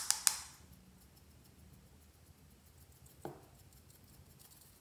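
Sharp hard-plastic clicks, three in quick succession, from a small glitter shaker being opened and handled, then faint light ticks and pattering as glitter is shaken from it onto slime. A soft knock comes about three seconds in.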